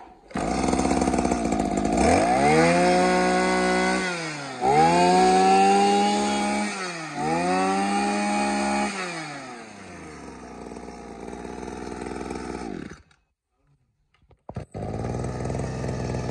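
Small 26cc Makita brush-cutter engine starts and is revved three times. Each time its pitch rises, holds for about a second and a half and drops back. It idles and cuts off suddenly about 13 seconds in, and an engine runs again steadily near the end.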